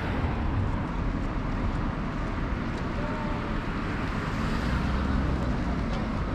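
Steady outdoor street noise: an even, low rumble with no distinct events.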